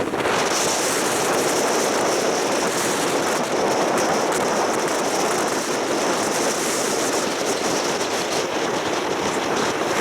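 Steady, even rushing noise of an open tourist road train running along the road, with wind.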